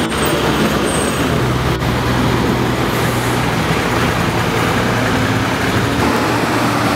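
Street traffic dominated by the diesel engines of Panama's 'Red Devil' buses, converted school buses, running and idling with a steady low hum. A single sharp click sounds about two seconds in.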